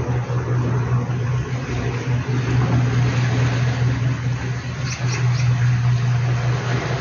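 Steady low engine drone with a constant hum and a wide rushing noise over it. Three short high squeaks come about five seconds in.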